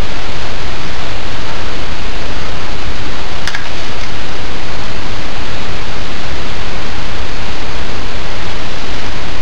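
Loud, steady hiss of background noise, with a single faint click about three and a half seconds in.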